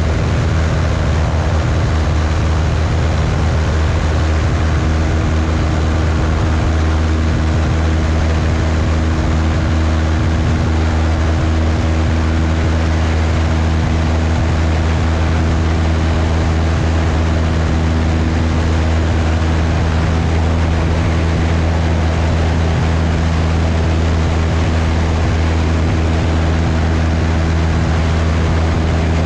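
180 hp Cessna 172's engine and propeller holding a steady drone in flight, with airflow rushing over a microphone mounted outside on the wing strut.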